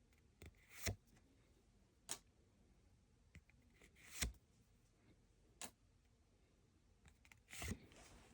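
Faint handling of trading cards and their foil packs: about five short taps and rustles, a second or two apart, with the loudest about four seconds in.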